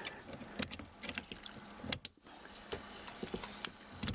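Water spraying and splashing from a disconnected dishwasher supply line that an old shut-off valve has failed to close, with scattered clicks and knocks throughout.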